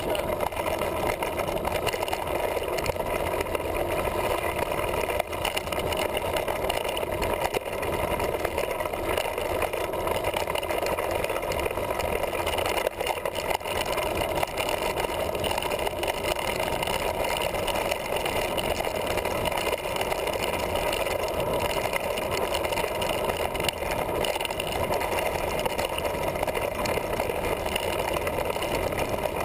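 Steady, muffled rush of wind and trail rumble from a mountain bike rolling down a dirt trail, picked up by a GoPro camera clamped to the handlebar.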